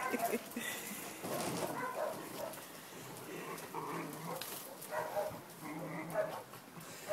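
Dogs giving short barks and yips at irregular intervals.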